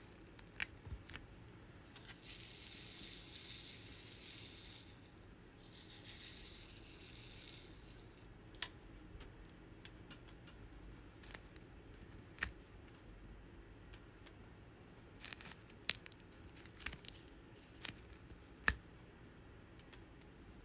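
A high rustling noise twice near the start, each about two and a half seconds long, then scattered sharp light clicks of a diamond-painting drill pen tapping round resin drills onto the sticky canvas.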